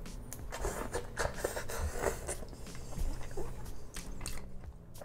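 Chewing and biting into grilled giant squid close to the microphone: a busy string of short clicks and smacks that dies down near the end.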